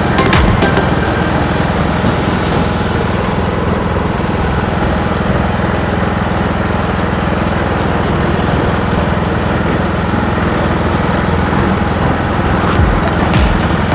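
A small engine running steadily at an even speed, with a few sharp clicks in the first second and again near the end.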